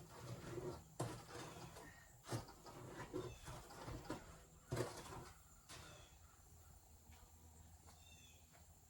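Faint outdoor ambience with a few soft knocks in the first six seconds and faint, short bird chirps now and then.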